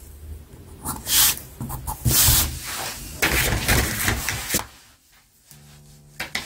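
Pencil and clear plastic ruler being worked over a paper pattern sheet: scraping and rustling in several bursts. Quiet music comes in near the end.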